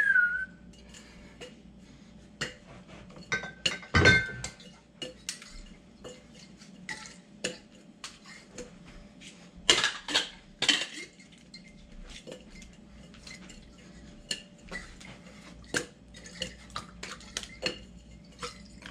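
Metal bartending shaker tins being flipped, caught and knocked together, giving irregular clinks and clanks. The loudest clank, about four seconds in, has a brief metallic ring, and a cluster of heavier knocks comes near the ten-second mark.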